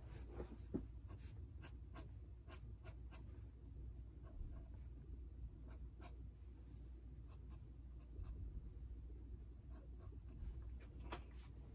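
Faint scratching of an ink pen drawing quick, short strokes on sketchbook paper, in irregular flurries, over a low steady room hum.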